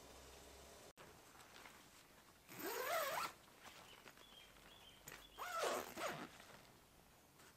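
Tent door zipper pulled twice, two quick zips a couple of seconds apart, each sliding up and down in pitch as the pull speeds and slows.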